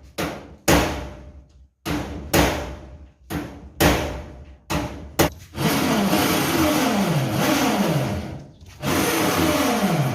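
A string of sharp knocks, then a power drill driving screws into the metal frame. The drill runs with its pitch repeatedly dropping under load, stops briefly near the end and starts again.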